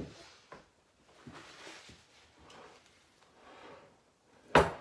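Paper towel rustling and rubbing as it wipes the rim of a bowl of beet salad, in several soft strokes. A single sharp knock comes near the end.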